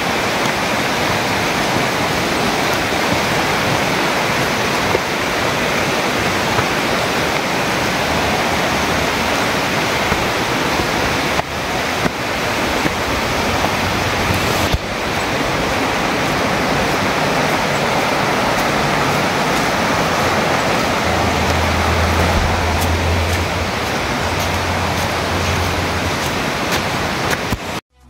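Steady, loud rush of a rainforest creek and waterfall, water pouring over rocks. It cuts off suddenly near the end.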